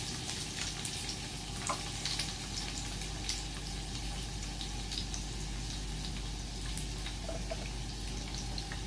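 Chopped garlic sizzling in hot cooking oil in a frying pan: a steady hiss with scattered small pops and crackles.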